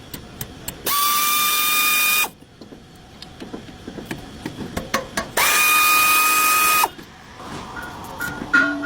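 A handheld power tool, drill-like, running in two steady whirring runs of about a second and a half each, with small clicks and knocks of handling in between.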